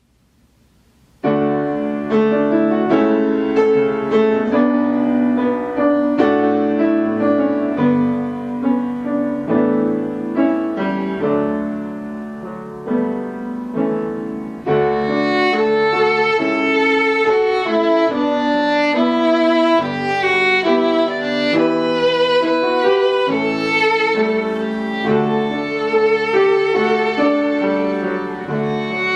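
Instrumental background music, starting about a second in and growing fuller and brighter about halfway through.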